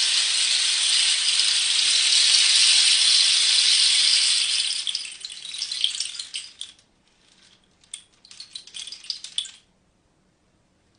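Rain stick: a dense, even rush of falling pellets that thins after about four seconds into scattered patters and clicks, with a last trickle near the end before it stops.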